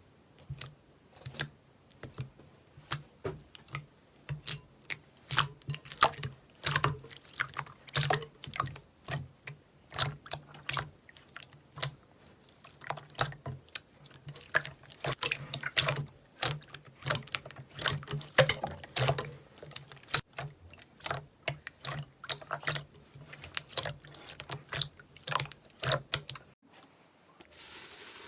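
Slime being squeezed and pressed by hand, making a quick, irregular run of sharp wet clicks and pops, a couple each second, that stops suddenly near the end.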